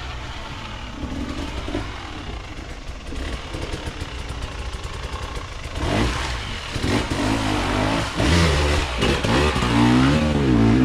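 Enduro dirt bike engine revving hard, its pitch rising and falling again and again as the throttle is worked, louder from about six seconds in; fainter engine noise before that.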